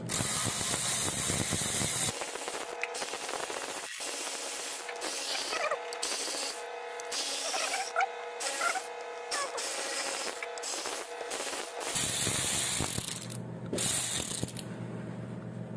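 Cordless electric ratchet whirring in bursts as it spins out the 10 mm bolts of an oil pump's rear cover, with the loudest runs at the start and about twelve seconds in.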